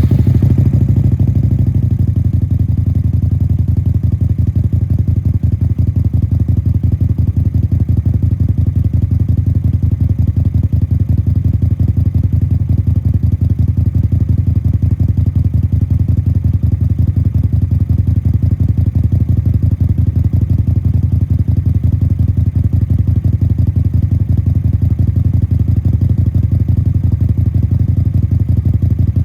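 Suzuki Intruder 250LC's 250 cc V-twin idling steadily, an even, fast run of exhaust pulses. It breathes through a two-into-one exhaust: stock manifolds joined by a home-made mid-pipe into an open-ended Motorstage silencer made for the Harley V-Rod.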